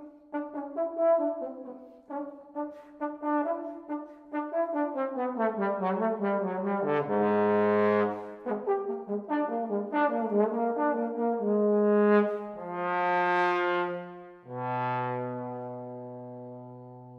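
Solo trombone playing a quick run of short detached notes that work their way downward, then longer low notes, ending on a long low held note that slowly fades.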